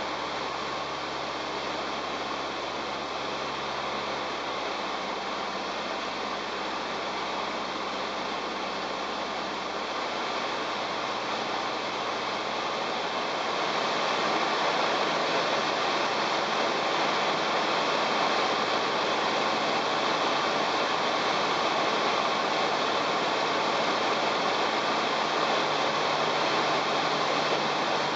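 Steady engine, propeller and airflow noise inside the cockpit of a Jodel DR1050 light aircraft in flight, growing louder about halfway through.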